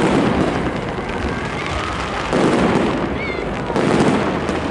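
Aerial fireworks bursting overhead: three loud bursts, one at the start, one about two and a half seconds in and one near the end.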